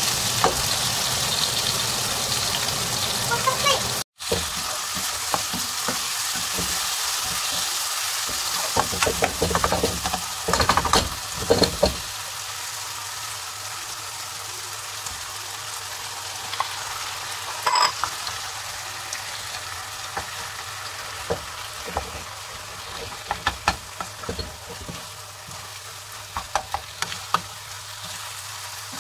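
Chopped onion, garlic and tomato sizzling in a frying pan while a spoon stirs and scrapes, with scattered clicks of the spoon against the pan. The sound cuts out for an instant about four seconds in, and from about twelve seconds in the sizzle is quieter as minced pork is stirred in.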